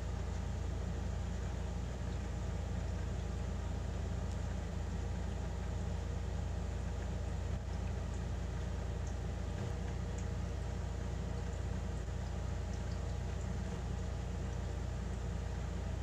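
Steady low mechanical hum, like a motor running.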